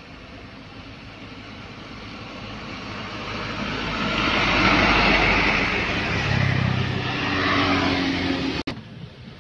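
Isuzu light-duty box truck driving past: its diesel engine and tyre noise build up over a few seconds, peak about halfway through, and fade as it moves away, with a steady engine hum at the tail. The sound cuts off suddenly near the end.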